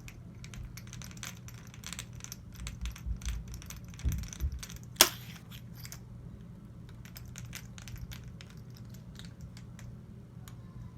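Small metal parts of a GSG AK-47 .22 LR rifle clicking and clinking as they are handled during disassembly. There are a few dull knocks about four seconds in and one sharp metallic clink with a short ring about a second later, over a steady low hum.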